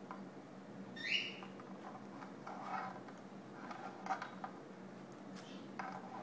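African grey parrot giving a short rising whistle-squeak about a second in, followed by several soft chattering, clicking sounds.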